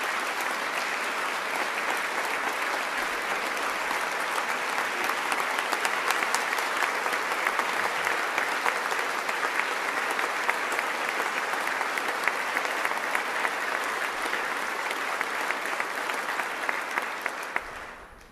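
Audience of legislators clapping steadily in a large hall, a dense patter of many hands that dies away near the end.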